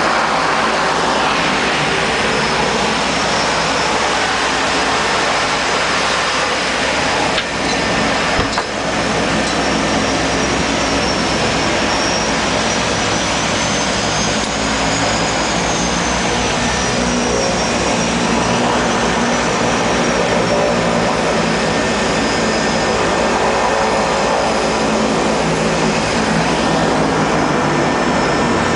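Seaplane's engines running steadily, heard inside the cabin while the plane taxis on the water before takeoff, with a high whine that slowly wavers in pitch. Two brief knocks about eight seconds in.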